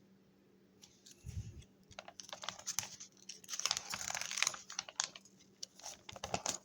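Packaging being handled by hand: irregular rustling and crinkling with many small clicks, and a low thump about a second in.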